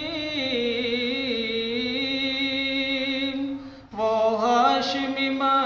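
A single voice singing an Urdu naat, drawing out a long wavering melismatic note. It breaks briefly just before four seconds, then starts a new gliding phrase.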